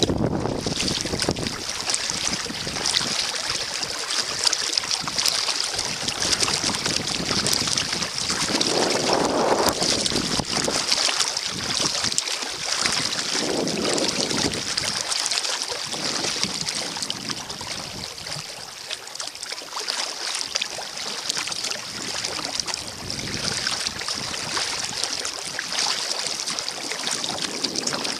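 Wind gusting across the microphone while kayaking, over a steady hiss of blowing snow and water around the kayak. A few stronger gusts swell up, one about nine seconds in and another about five seconds later.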